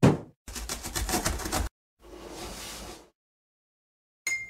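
Cartoon sound effects: a thump as a cardboard box lands, a rapid rattling for about a second, then a whoosh. Near the end comes a short bright chime.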